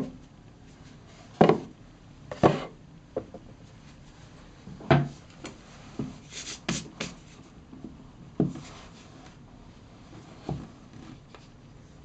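A black watch presentation box being handled on a hard countertop and its lid opened: irregular knocks, taps and short scrapes as it is moved and gripped. The loudest knocks come at the very start and about a second and a half, two and a half, five and eight and a half seconds in.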